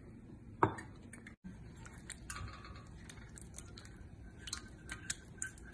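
Soft squelching and scraping of a spatula working thick apricot jam out of a jar and a metal measuring cup into a saucepan, with scattered light taps and clicks of the utensils. The sharpest click comes about half a second in.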